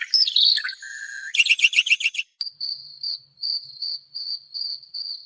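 Birds singing in fast, high trills. About two seconds in, this gives way abruptly to an insect, cricket-like, chirping in a steady series of short, high pulses.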